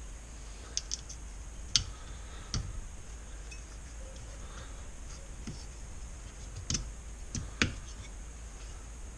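Scattered clicks and light knocks of small metal parts of a Honda GX35 engine being handled and fitted by hand, the sharpest about two seconds in with a brief ring after it.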